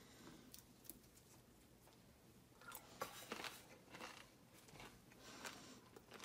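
Faint crinkling and soft crunches of crisp precooked bacon pieces being handled and laid down by hand, a scatter of small crackles from about three to five and a half seconds in.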